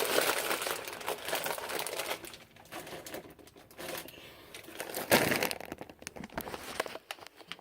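Crinkling of a bag of hot Cheetos being handled as chips are taken out of it: a dense rustle for the first two seconds, then scattered crackles and one more short burst about five seconds in.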